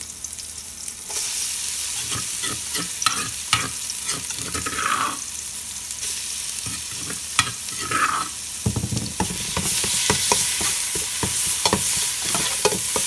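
Pounded shallot, lemongrass and chili paste sizzling in hot oil in a metal stockpot, the herbs being fried to release their fragrance. A metal utensil clicks and scrapes against the pot as it stirs. The sizzle sets in about a second in and grows louder near the end.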